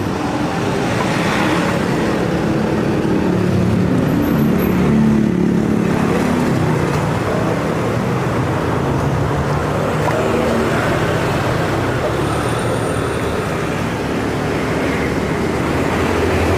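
Street traffic: the steady, loud running of passing vehicle engines.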